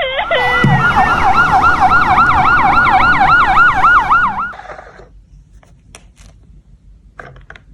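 Ambulance siren in fast yelp mode, its pitch swinging up and down about three times a second, cutting off about four and a half seconds in; a few faint clicks follow.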